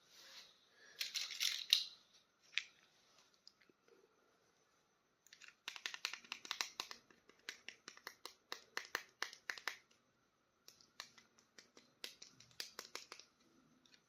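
Small plastic toy and its packaging being handled: bursts of quick, sharp plastic clicks and crinkles, with a long dense run in the middle and a shorter run near the end.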